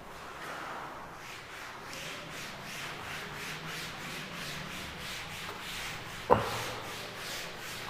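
A duster wiping chalk off a blackboard in repeated rubbing strokes, with one sharp knock a little after six seconds in.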